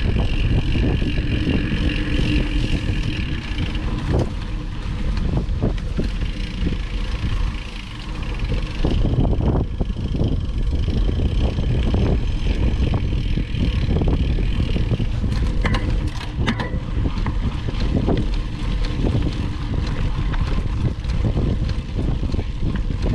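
Wind buffeting the microphone of a mountain bike ride, with the bike rattling over a dirt trail and scattered knocks from bumps.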